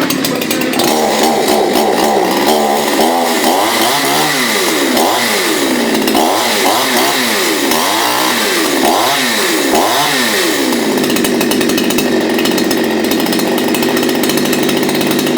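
Chainsaw running at high speed. From about four to ten seconds in, its pitch swings up and down again and again, then it holds steady.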